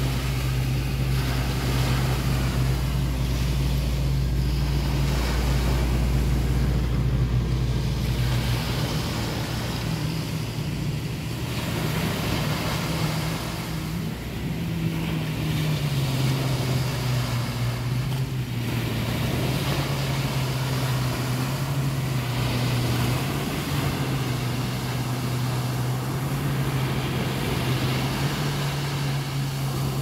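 Small waves breaking and washing up a sandy beach, the wash swelling and easing over several seconds. A steady low hum runs under it throughout, with a deeper rumble that stops about eight seconds in.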